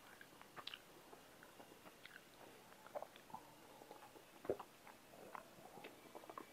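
Faint mouth sounds of a person eating and drinking: small scattered clicks of chewing, then sips and swallows of water from a glass, the strongest about four and a half seconds in.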